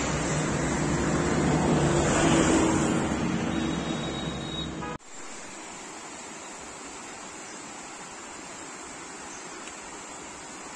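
A loud rushing noise with a low rumble for about five seconds, cut off suddenly, then the quieter, steady rush of a small mountain stream flowing over rocks.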